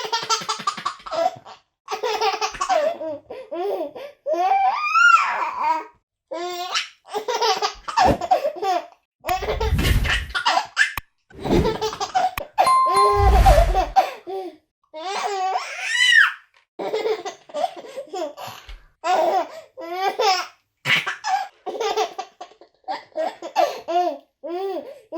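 A baby laughing in repeated bursts of giggles and belly laughs, the pitch sliding up and down with each burst. A low rumble sounds on the microphone about ten seconds in and again near thirteen seconds.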